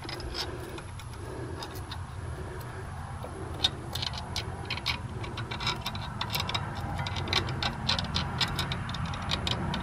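Light, irregular metallic clicks and clinks of a bolt and hand tools against the engine while a Cummins water-pump bolt is worked into its hole, growing busier from about three seconds in, over a steady low hum.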